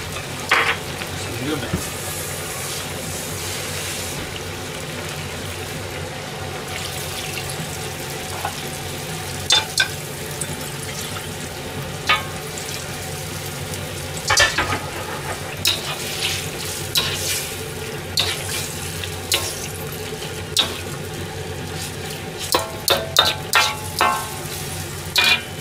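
Vegetables in broth sizzling and simmering in an iron wok, with a metal ladle scraping and clinking against the pan now and then. Several quick clinks come in a cluster near the end.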